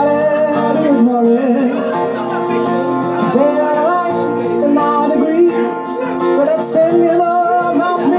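Steel-string acoustic guitar strummed steadily under a man singing long, gliding notes.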